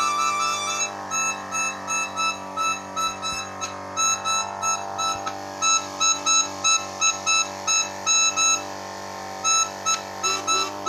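A melodica fed with air through a hose instead of being blown by mouth. It holds one note at first, then sounds short repeated notes of the same pitch, about two to three a second, louder from about halfway, with a brief pause near the end. A steady low hum runs underneath.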